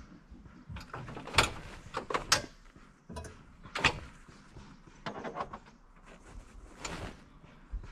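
A run of irregular knocks and clunks, about half a dozen of them a second or so apart, the loudest two near the start.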